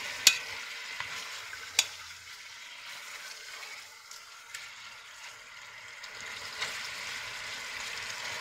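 Pork tenderloin pieces sizzling as they brown in a stainless steel pot, stirred with a spatula. Two sharp knocks of the spatula against the pot come in the first two seconds.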